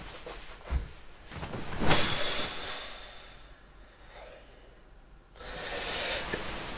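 A person flopping down on their back on a bed, with a broad rustle and huff about two seconds in, the loudest moment. Then a long, tired breath out near the end.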